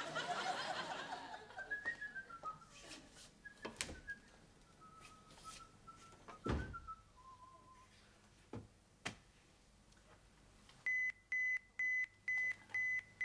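Someone whistling a short tune, the notes wandering up and down, over scattered clicks and a heavier thud midway. Audience laughter is dying away at the start. Near the end comes a run of five or six evenly spaced, short, high electronic beeps.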